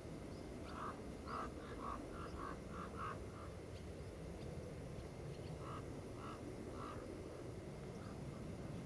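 Wind rumbling on the microphone under two bouts of short, repeated animal calls, about three a second, one early and one past the middle.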